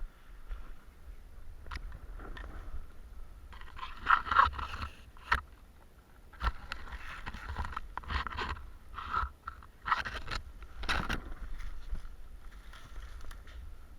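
Irregular scraping and crunching rustle of someone moving through forest undergrowth, with a few sharp clicks and a steady low rumble underneath.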